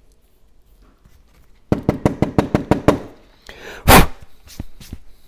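A fast run of about ten sharp knocks in just over a second, then one loud sharp knock followed by a few faint ticks.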